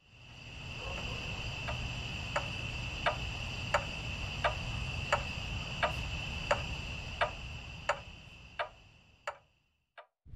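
Logo intro sound effect: a steady high-pitched tone over a low rumble, with a tick about every 0.7 seconds like a clock. The tone fades out near the end, and two last ticks sound alone.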